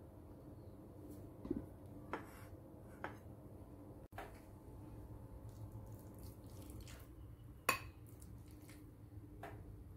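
A few faint clinks and taps of a spoon against ceramic bowls, the sharpest about three-quarters of the way through, over a low steady hum.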